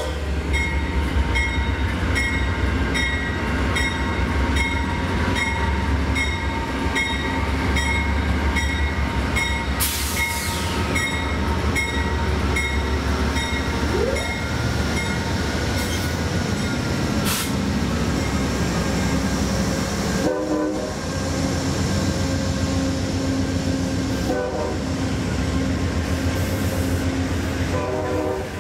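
Amtrak GE P42DC diesel locomotives pulling a passenger train slowly into a station: a deep, steady engine rumble, with the locomotive bell ringing about twice a second for the first dozen seconds, then the passenger cars rolling past.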